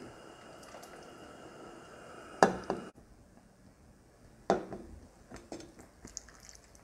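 Wooden ladle knocking twice against a stainless steel pot as broth is scooped and poured into a bowl, the first knock the louder, followed by a few light clinks and drips.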